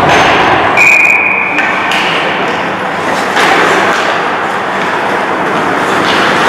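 Ice hockey rink noise: a steady rush of sound with knocks of sticks on ice. About a second in, a single high steady whistle note sounds for about a second.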